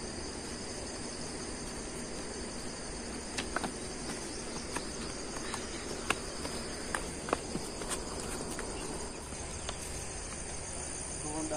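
A steady, high-pitched chorus of insects chirring in the surrounding vegetation, with scattered sharp clicks of footsteps on stony ground.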